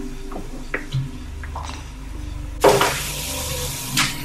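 A few light clicks and knocks, then a kitchen tap is turned on about two-thirds of the way in and water runs hissing into the sink.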